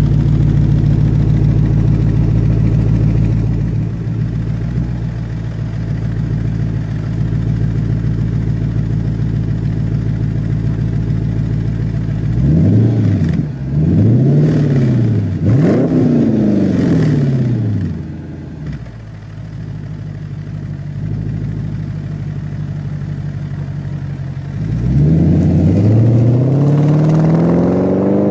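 2009 Dodge Challenger's 6.1-litre HEMI V8 through an MBRP performance exhaust, idling steadily, then revved three times about halfway through. It settles back to idle, then accelerates away near the end with the pitch climbing.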